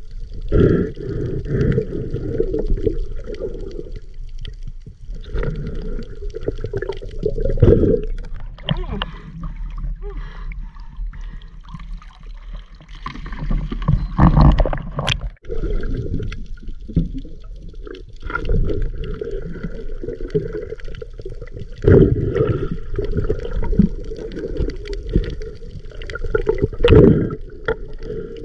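Sea water sloshing and gurgling close against the microphone, in irregular surges every few seconds.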